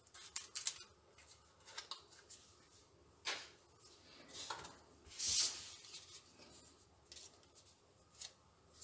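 Paper and card being handled on a craft table: faint rustles and small clicks, with two short brushing or scraping sounds, the louder about five seconds in.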